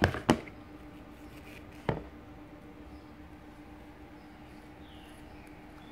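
A few sharp knocks of a toddler's plastic plate and fork being handled on a high-chair tray: one right at the start, the loudest about a third of a second in, and another near two seconds. A faint steady hum runs underneath.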